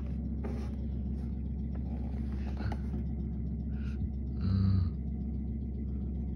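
Steady low background rumble with a constant hum, and a short louder sound about three-quarters of the way through.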